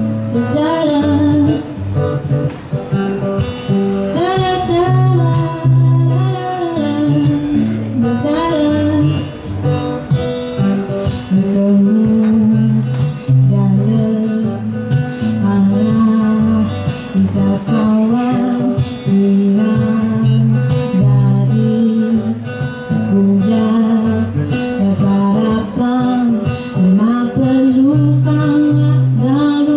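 A woman singing to acoustic guitar accompaniment, holding long notes that waver in pitch.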